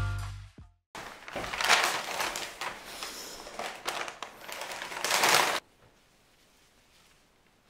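Stiff paper flower wrapping rustling and crinkling as a bouquet is unwrapped by hand, cutting off suddenly about two-thirds of the way through. The tail of a guitar tune fades out at the very start.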